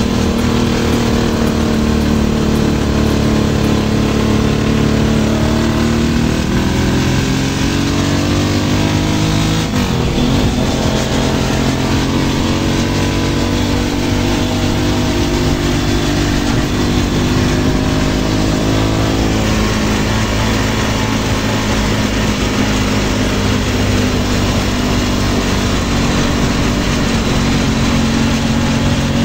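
A small engine running loud and steady, its pitch easing down near the middle and then rising again.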